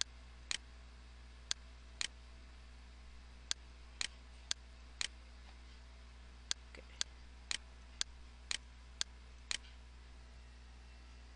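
Computer mouse clicking: about fourteen short, sharp clicks, coming about two a second in the second half, over a steady low hum.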